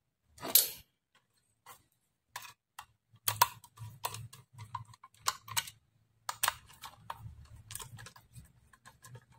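Small hand screwdriver driving screws into a sound card's metal casing: irregular light clicks and ticks of the bit and screws, with soft handling knocks of the case.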